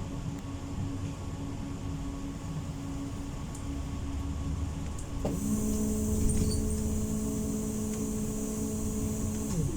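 Inside a Pesa tram: a steady low rumble, and about halfway through an electrical whine with a hiss starts with a quick upward slide, holds one pitch, then slides down and stops near the end.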